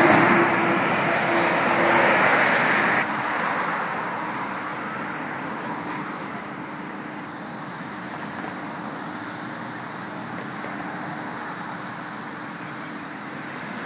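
Highway traffic: a car goes by close during the first three seconds, then a steady rush of road noise from passing vehicles.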